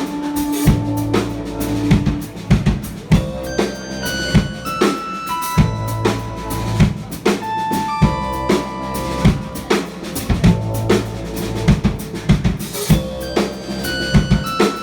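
Band playing live: a drum kit keeps a steady beat of kick and snare under held bass notes and higher sustained instrument notes.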